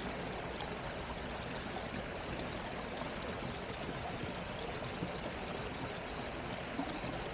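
Brook flowing: a steady, even rush of running water.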